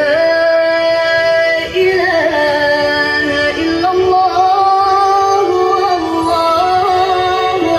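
Loud music with a sung melody of long held notes stepping up and down in pitch, played through a large truck-mounted sound-system speaker stack.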